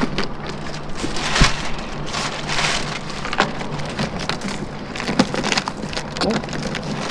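Irregular clicks, knocks and rustling of things being handled at close range, over a faint low steady hum.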